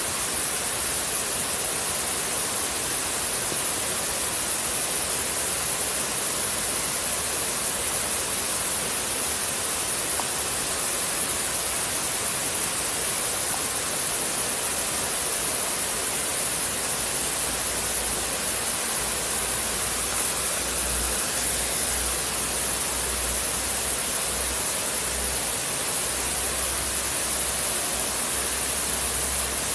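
River water flowing with a steady, even rush and a constant high-pitched whine above it. Uneven low rumbles come in about two-thirds of the way through.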